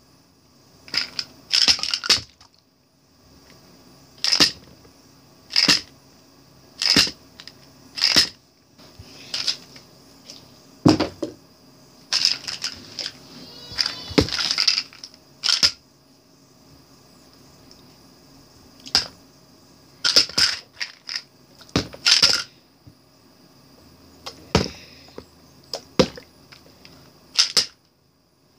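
Small plastic supplement bottles being flipped and landing on, or toppling off, a stack of bottles on a hardcover book and carpet: a series of sharp plastic knocks and clatters, irregularly a second or two apart, with a busier run of clattering about halfway through.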